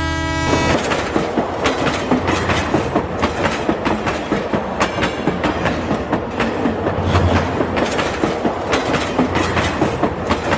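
Toy train running along its track: a dense, steady rattling clatter of rapid fine clicks, like wheels on rails.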